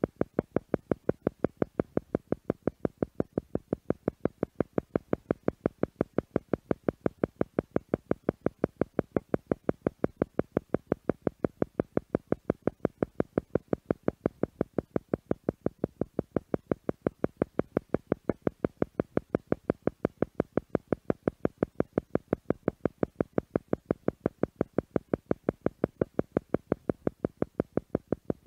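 Theta meditation tone: an electronic tone pulsing on and off in a fast, perfectly even rhythm of several beats a second, meant to draw the listener's brain waves toward the theta range.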